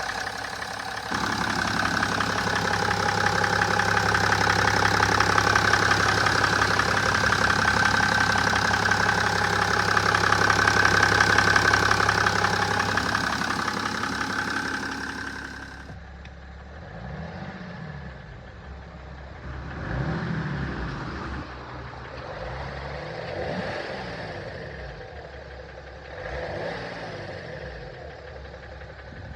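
BMW M57N2 3.0-litre straight-six diesel running with a rapid clicking, ticking noise, which the owner suspects comes from the bearings or the valves. After about 16 seconds the sound turns duller and quieter, and the engine speed rises and falls four times.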